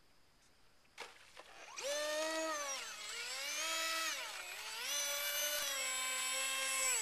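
RC Mako seaplane's motor and propeller whining as it taxis on the water, throttled up about two seconds in, the pitch dipping twice and rising again before it cuts off suddenly at the end.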